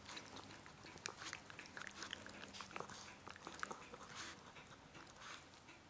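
A Lhasa Apso puppy and a poodle play-fighting: faint, scattered quick snaps and mouthing noises.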